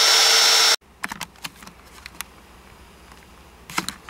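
Die grinder running with a steady high whine, its abrasive bit grinding inside the turbo exhaust housing's outlet to port it; the sound stops abruptly under a second in. A few faint clicks and taps follow.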